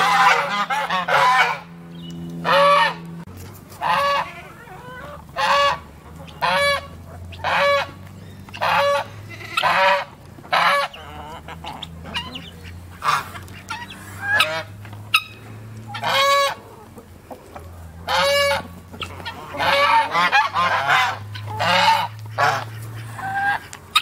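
Domestic geese honking over and over, short loud calls about once a second, with clusters of overlapping honks near the start and again near the end.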